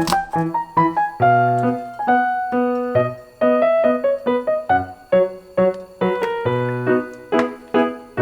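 Background instrumental music: a melody of single struck or plucked notes, each fading out, over low bass notes.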